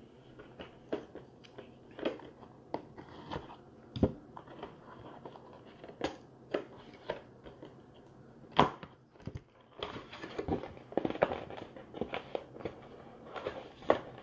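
Utility knife slitting open a sealed cardboard box of trading cards, with scattered clicks, scrapes and crinkles as the box is handled. Near the end the packaged mini-boxes are pulled out, and the clicks come thicker and louder.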